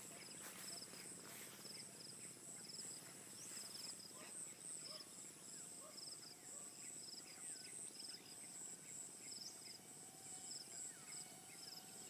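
Faint insects trilling in grassland, a steady high-pitched buzz with pulsing chirps, and occasional short bird calls.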